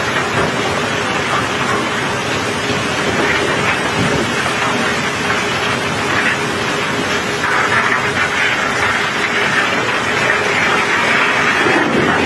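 Steady rushing of heavy rain and a high-pressure water jet spraying onto a barge's load of cobblestones, washing the stones off. A faint steady hum runs underneath, and the rushing gets louder for the second half.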